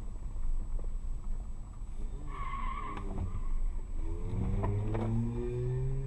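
Car engine and road noise heard from inside a dashcam car. A short squeal comes about two and a half seconds in, then from about four seconds on an engine accelerates with a steadily rising pitch.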